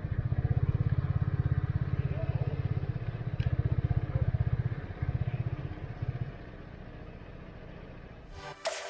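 Benelli Leoncino 250 single-cylinder motorcycle engine running with a steady, fast pulse that fades after about six seconds. Near the end a short whoosh leads into music.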